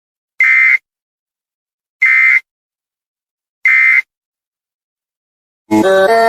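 Three short, identical buzzy data bursts of an Emergency Alert System SAME end-of-message signal, about a second and a half apart, marking the end of the alert. Electronic music starts near the end.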